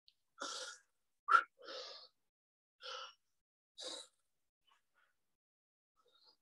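A person breathing hard and out of breath after intense exercise: about five heavy breaths, roughly one a second, with one short, sharper and louder breath a little over a second in, then the breathing settles near the end.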